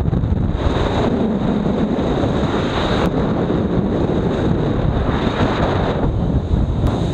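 Wind of 40-plus knots blowing hard across a head-mounted camera's microphone at the top of a sailing yacht's mast, a steady heavy rumble, with the rush of breaking seas below.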